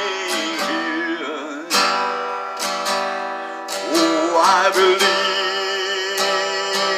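Music: an acoustic guitar strumming chords, with a voice singing along in places.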